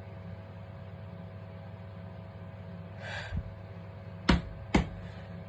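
A person's quick, sharp intake of breath, then two short, sharp bursts about half a second apart, over a steady low hum.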